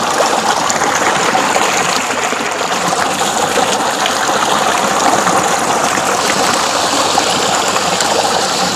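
Water gushing from a large pipe outlet into a concrete tank, a steady loud rush and splash.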